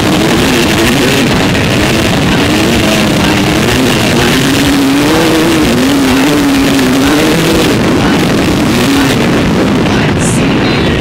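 Enduro motorcycle engine running on the throttle, its revs rising and falling, under a heavy rush of wind and road noise on the bike-mounted camera.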